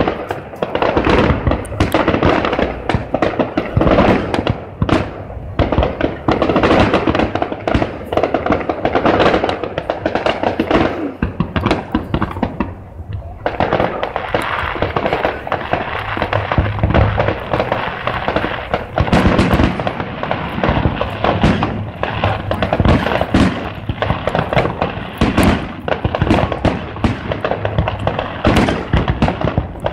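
Aerial fireworks display going off in a rapid, nearly continuous string of bangs and crackles, with a brief lull about halfway through.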